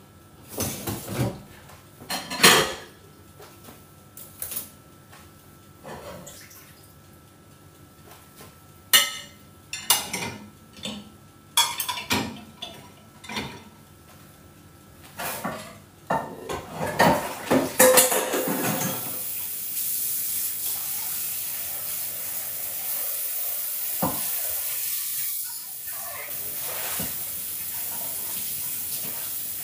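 Glasses, plates and cutlery clinking and knocking as a dishwasher is unloaded, in many separate strikes. About two-thirds of the way through, a kitchen tap starts running in a steady hiss that carries on to the end.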